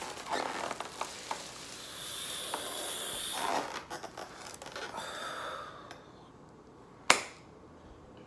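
Plastic carry-out bag rustling and crinkling as a styrofoam takeout box is pulled out of it, dying away after about six seconds, then a single sharp knock about seven seconds in.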